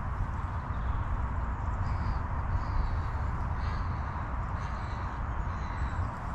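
Wind buffeting the microphone in a steady low rumble, with faint bird calls a few times from about two seconds in.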